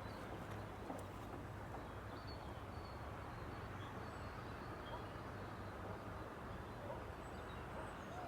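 Steady outdoor background noise with faint, high bird chirps now and then.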